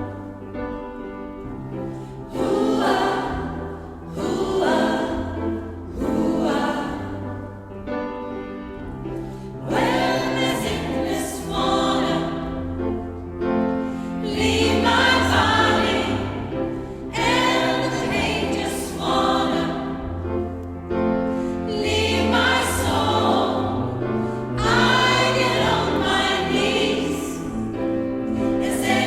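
Gospel choir singing a song in several voice parts over low held accompaniment notes.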